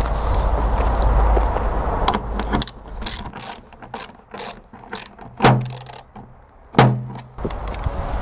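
Screwdriver driving a screw into a car's tailgate trim, making a run of quick irregular clicks, with two louder knocks about five and a half and seven seconds in. A low rumbling noise fills the first couple of seconds.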